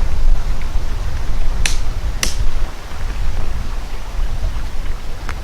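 Two sharp clicks, about a second and a half and two seconds in, over a steady low rumble.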